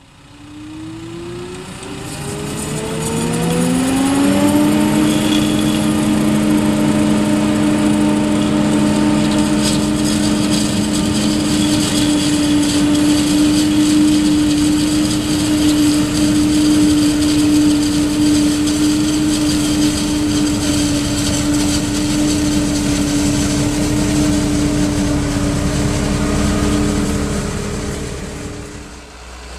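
New Holland self-propelled forage harvester chopping maize at full working speed, its engine and chopper drum giving a steady high whine and drone. The pitch climbs over the first four seconds as the machine comes up to speed, then holds level. The tractor pulling the trailer alongside runs underneath it.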